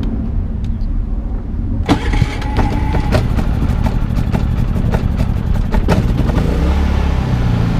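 Predator 3500 inverter generator's single-cylinder engine being started about two seconds in, catching and then running steadily; before that only a low rumble is heard.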